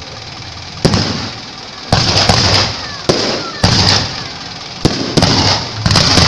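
Aerial firework shells bursting overhead: about eight sharp bangs at irregular intervals, roughly one a second, each trailing off over a second or so.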